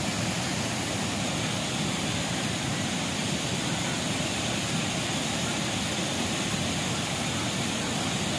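Water pouring over a weir spillway and churning through rapids: a steady, unbroken rush of water.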